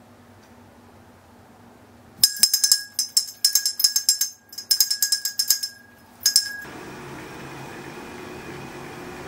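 A small bell hanging in a Christmas wreath jangling and ringing over and over as a cat paws at it, in quick bursts for about four seconds with a brief pause in the middle, then stopping abruptly. A steady low background hum follows.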